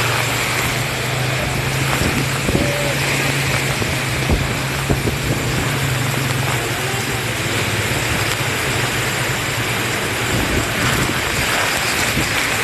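Strong wind blowing in a steady, loud rush, with a few sharp knocks a couple of seconds in.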